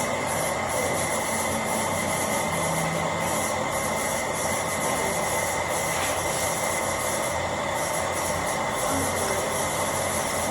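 Steady, shrill noise of metal being worked by a power tool or workshop machine, with a constant high whine running through it.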